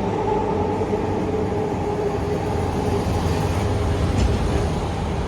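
A moving vehicle's steady running noise, a continuous rumble with a faint steady hum that fades out about three seconds in.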